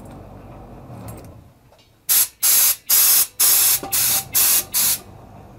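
Compressed air blowing from an air blow gun on the airline of a 24-litre compressor: about seven short, loud blasts in quick succession, starting about two seconds in.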